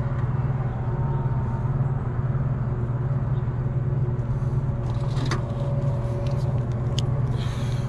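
Steady low mechanical hum, with two sharp clicks from a wire crimping tool closing on connectors, about five and seven seconds in.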